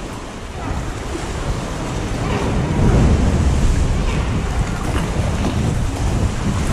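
Wind buffeting the microphone over sea swell sloshing and lapping against the rock of a sea cave as a kayak passes through, loudest about three seconds in.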